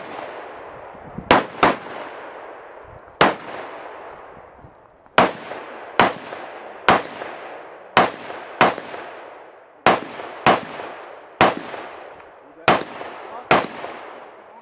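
Gunshots in a competition string of fire: about thirteen shots at uneven spacing, some in quick pairs, each trailing off in a long echo.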